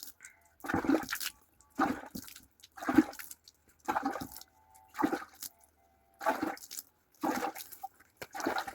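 Water splashing in short bursts about once a second, eight in all, as hair is rinsed.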